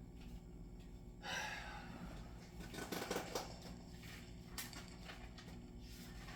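Faint rustling and a few small clicks, like handling noise, over a steady low electrical hum; the loudest rustle comes about a second in, with a cluster of clicks around the middle.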